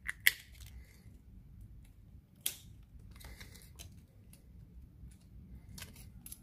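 Handling noise as a coiled USB Type-C charging cable is unwrapped and uncoiled: a few sharp plastic clicks and brief rustles, the two loudest clicks right at the start, another about two and a half seconds in and a soft rustle just after.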